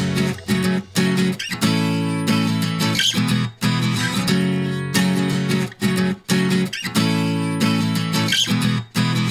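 Background music of strummed guitar chords, with short breaks between chords and no drums or bass underneath.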